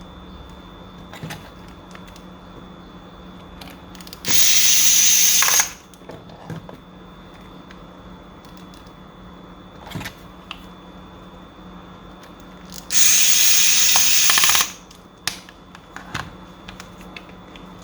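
Small electric screwdriver running in two short bursts of about a second and a half each, as screws are driven out of Marshall Major 4 headphones. Small clicks of parts being handled come between the bursts.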